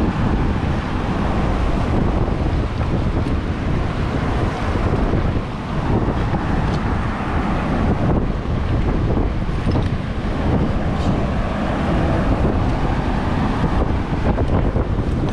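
Wind buffeting the microphone in a steady, gusty rumble, over surf breaking on a rocky shore.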